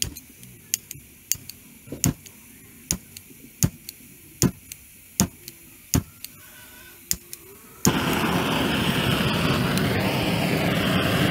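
Sharp separate clicks or knocks, about one a second. Then, about eight seconds in, a loud steady roar starts suddenly: a propane gas burner lit and running at full flame.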